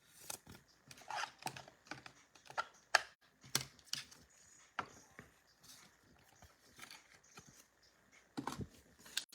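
Irregular light clicks and taps from hands working at a tabletop, with a sharper click about three seconds in.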